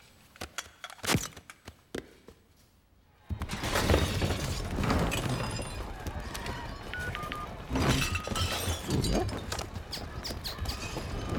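Film sound effects: a few scattered knocks and clicks, with a sharper hit about a second in. About three seconds in, a sudden dense chaos of crashing and breaking starts, many impacts and shattering sounds piling on one another.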